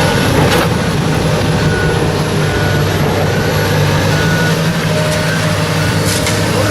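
Heavy engine of site machinery running steadily at an even low pitch, with faint short high beeps repeating every second or so.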